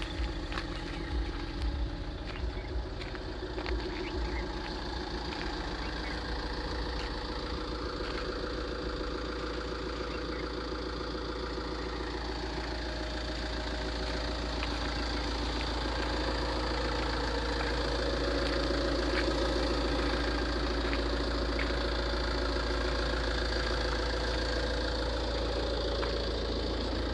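Modified Tata Safari Dicor turbodiesel engine running steadily, its speed and loudness rising gradually from about halfway, with a few light ticks in the first seconds. The modification is meant to let the turbocharger's whistle be heard.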